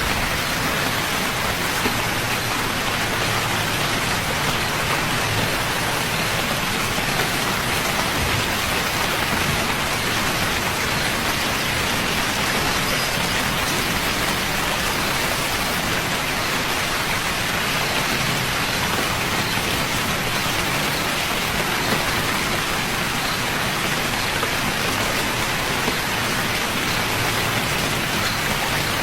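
Steady rain falling, an even hiss of drops with no break or change.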